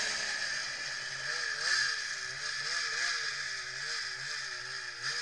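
Engine of a 2003 Polaris RMK 800 Vertical Edge snowmobile, a two-stroke twin, running at low part throttle, its pitch wavering up and down about three times a second, over a steady hiss.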